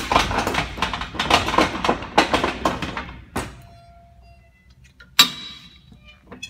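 Manual pallet jack rolling on a concrete floor, its steel forks sliding under a wooden pallet, giving a dense rattling clatter for about three seconds. A single sharp metallic clank with a brief ring follows about five seconds in.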